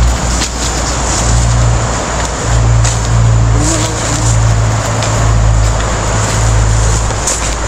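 Wind buffeting the microphone, a heavy rumble that comes and goes, with a few crunches of dry bamboo leaves underfoot.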